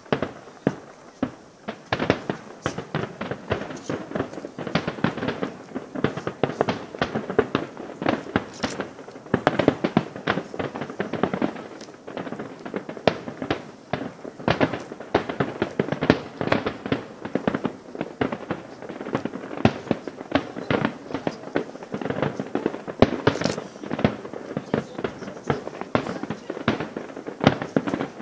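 Aerial firework shells of a large display bursting at a distance in a dense, continuous barrage of bangs and crackles, several a second without let-up.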